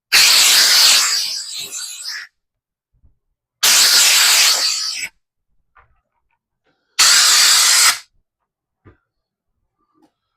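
Compressed air blowing dust off the Kydex and mold in three hissing blasts, each lasting one to two seconds with pauses between them.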